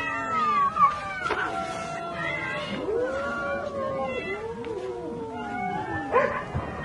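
Many cats meowing at once, their calls overlapping and rising and falling at different pitches: a crowd of hungry cats calling as food dishes are put out.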